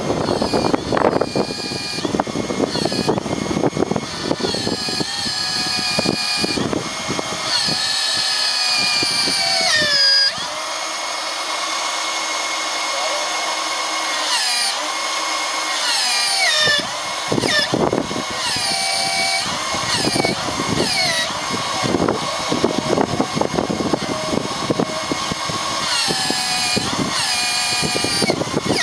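Caterpillar excavator being worked through its movements, a mechanical whine that repeatedly rises and falls in pitch as the controls are moved, with gusts of wind buffeting the microphone.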